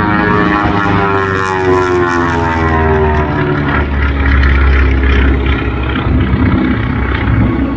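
Twin Pratt & Whitney R-985 radial engines of a 1943 Beechcraft Model 18 (AT-7C) flying an aerobatic pass. The propeller and engine drone drops in pitch over the first few seconds as the plane goes by, then settles into a deep, rough rumble.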